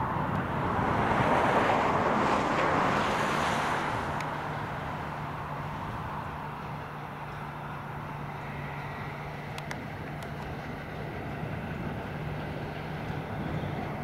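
New Holland CX7080 combine harvester working in standing barley, with a tractor running alongside: a steady machinery drone with a low hum. A broad rushing sound swells over the first few seconds and then fades.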